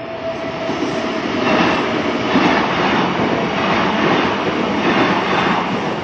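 A Kintetsu electric train passing over the level crossing, its wheels clattering rhythmically over the rail joints, loud through the middle. At first the crossing's warning bell still rings as a steady tone, then it fades out under the train.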